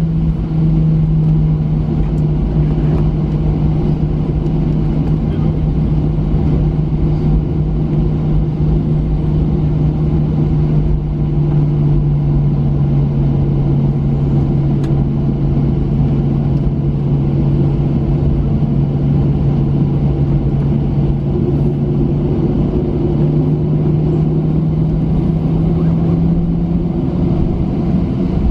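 Boeing 737-900's CFM56-7B turbofan engines at taxi power, heard inside the cabin over the wing: a steady low drone with a humming tone over a rumble. Near the end the tone rises slightly in pitch as the engines spool up a little.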